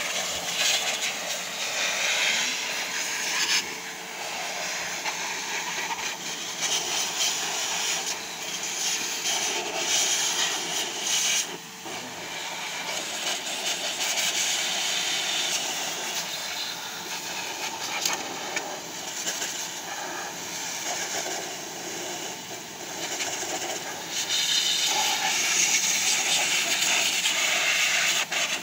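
Wet/dry vacuum cleaner running as a blower, its motor humming steadily under a rush of air from the hose as it blows dust out of a desktop computer case. The air noise swells and fades as the nozzle moves, dips briefly about twelve seconds in, and is loudest near the end.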